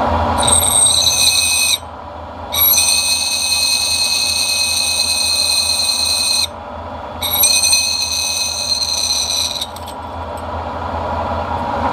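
Drill bit squealing as it cuts holes in a stainless steel plate on a milling machine. It comes in three spells separated by short breaks, the longest about four seconds, over the steady hum of the mill's motor.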